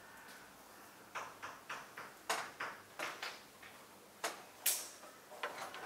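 Chalk writing on a blackboard: a run of quick, irregular taps and short strokes, starting about a second in.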